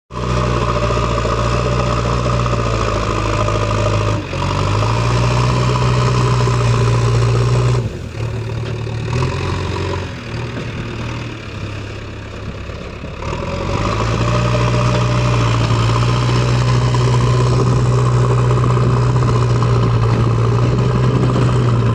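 JCB backhoe loader's diesel engine running steadily, with a brief dip about four seconds in. About eight seconds in the revs drop for several seconds, then pick back up and hold steady again.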